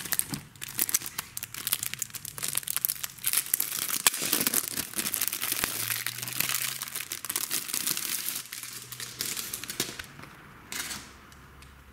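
Clear plastic shrink wrap crinkling and tearing in irregular bursts as it is pulled off a new keyboard, thinning out near the end with one last short rustle.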